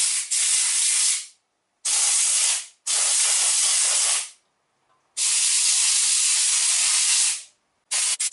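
Compressed-air blow gun hissing as it blasts air through the threaded bolt holes of a wheel hub to clear the threads. Four long blasts of one to two seconds each with short gaps between them, then a few quick puffs near the end.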